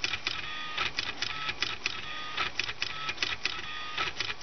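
Homemade pen plotter printing: the stepper motors of its CD-drive carriages whine in short steady stretches, broken by a brisk, uneven run of clicks and taps as the marker pen is lifted and dabbed down on the paper.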